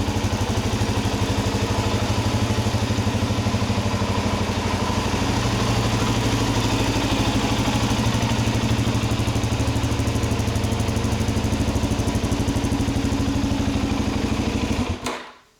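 Suzuki DR-Z400's single-cylinder four-stroke engine idling steadily, then cutting off abruptly near the end.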